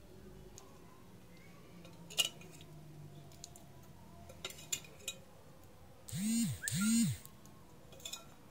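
Faint clicks and taps of a spoon against a kadai as chicken curry is spooned onto cooked rice. Near the end come two short squeaks, each rising then falling in pitch, the loudest sounds here.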